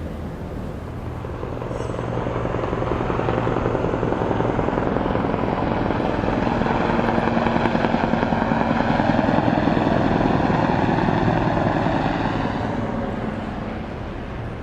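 Helicopter flying past, growing louder over several seconds, then fading away near the end.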